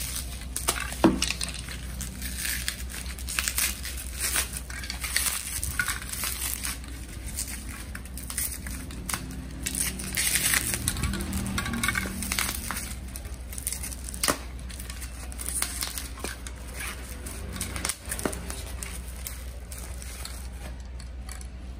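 Plastic bubble wrap and a plastic shipping bag crinkling and crackling in irregular bursts as hands unwrap a spray can.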